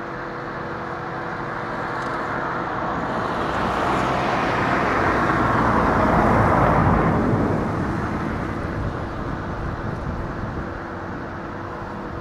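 Diesel engine of a working excavator running steadily, with a louder rushing machine noise that builds to a peak about halfway through and fades away again.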